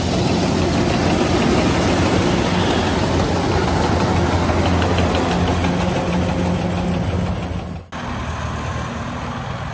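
Kubota DC-105X combine harvester's diesel engine running steadily, a low even hum. About eight seconds in, the sound drops out for an instant and comes back a little quieter.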